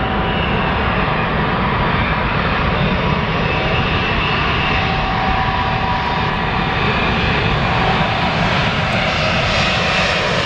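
Jet engines of a landing Airbus A380: a loud, steady rush with a few thin whining tones held above it.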